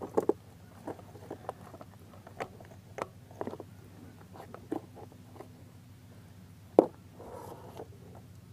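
Scattered metal clicks and clinks of an old roller drive chain being worked off a Rokon TrailBreaker's sprockets and pulled free by hand, with two louder knocks, one near the start and one near the end.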